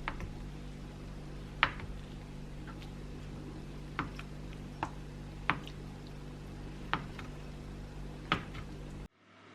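Utensils clicking and knocking against a pot or bowl over wet, liquid kitchen sounds, seven sharp taps spaced a second or two apart, with a steady low hum beneath. The sound cuts off abruptly near the end.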